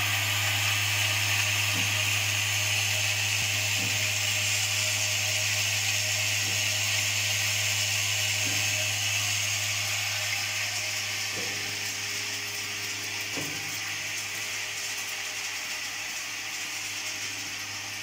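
Vibratory bowl feeder running, with a steady low electromagnetic hum under the dense rattle of yellow insulated ring terminals shaking up its spiral track. Faint ticks come about every two seconds, and the sound eases a little after about ten seconds.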